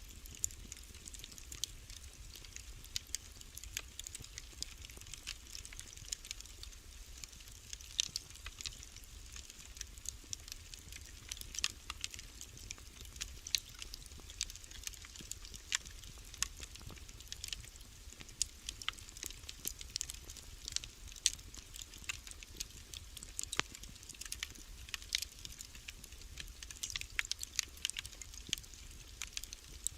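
Wood fire crackling in a fireplace: many irregular sharp pops and snaps over a faint low rumble.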